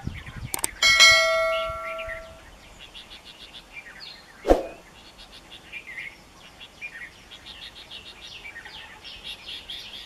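A mouse click and then a bright bell ding about a second in, fading over a second and a half: the sound effect of a subscribe-button animation. Small birds chirp throughout, and a single sharp knock comes about four and a half seconds in.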